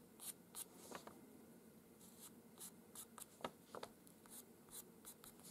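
Pastel pencil scratching faint short strokes on paper, about two a second, as individual fur hairs are drawn in.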